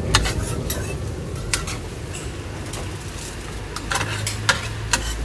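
Metal tongs clinking irregularly against a steel grill tray and a foil-lined plate as grilled pork tripe pieces are picked up and moved.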